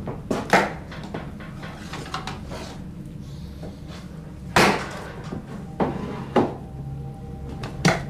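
A series of separate knocks and bangs, like wooden doors or cupboards being shut, the loudest about half a second in and near the middle, over a low steady drone.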